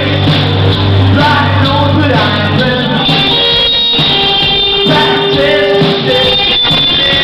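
Live rock band playing loudly: electric guitars, bass and drums with a male vocalist singing. A heavy low bass note carries the first couple of seconds, then drops out.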